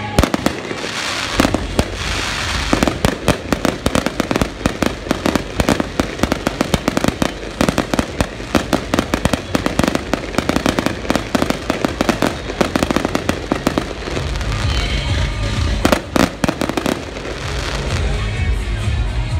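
Aerial fireworks going off in a rapid, dense barrage of bangs and crackling bursts. A few last heavy bangs come near the end.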